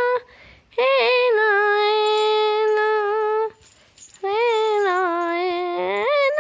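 A woman singing two long, high held notes, each wavering as it starts, with a short pause between them.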